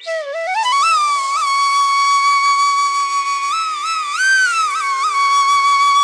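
Background music: a flute glides up into a long held note, bends higher for a moment about four seconds in, then settles back onto the same note, over a faint steady drone.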